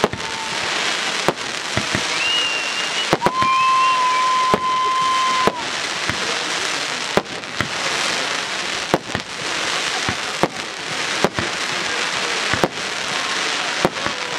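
Fireworks display: a steady crackling hiss of rising comets, with sharp bangs about once a second. A short rising whistle comes about two seconds in, then a steady whistle holds for about two seconds.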